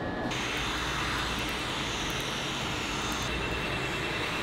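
Steady rushing air from a cold-air skin cooler blowing on the skin during laser tattoo removal. A faint high steady tone joins about three seconds in.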